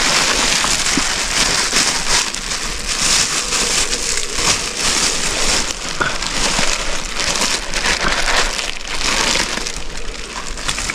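A plastic bag holding pieces of wild honeycomb crinkles and rustles as it is handled, with many small crackles.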